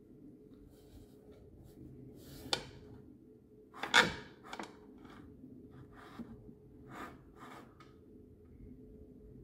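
Scattered clicks and knocks of the lawn tractor's steering wheel and column parts being handled and shifted on the steering shaft, with a sharp knock about two and a half seconds in and a louder clunk about four seconds in. A faint steady hum runs underneath.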